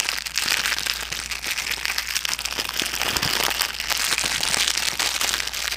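A bag being crinkled and crumpled close to a wireless lavalier microphone, a dense, continuous crackling. It serves as a noise test of the mic with noise cancellation switched off.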